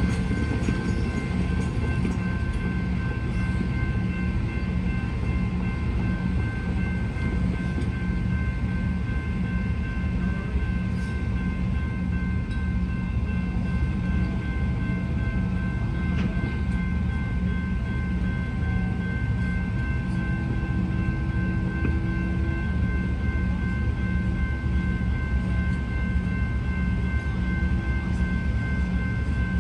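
A railway level crossing bell rings continuously, its warning held on by the crossing's manual test switch. Under it runs the steady low rumble of a diesel engine, the road-rail excavator's.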